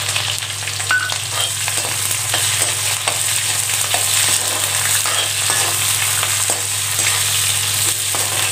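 Sliced shallots and onion frying in hot oil in a metal kadai, sizzling steadily, while a slotted metal spatula scrapes and taps against the pan as it stirs them.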